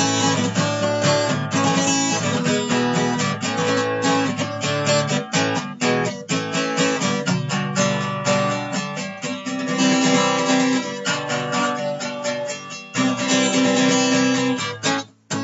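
Acoustic guitar music, strummed and picked in quick, busy notes over a sustained low note, with a brief break about thirteen seconds in.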